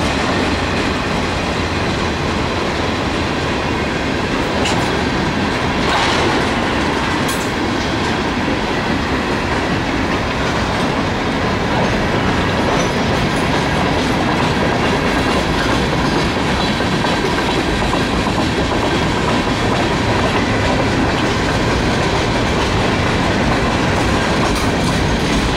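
Freight cars of a Norfolk Southern manifest train (boxcars, tank cars, covered hoppers) rolling past at close range: a steady rumble with the clickety-clack of wheels over the rail.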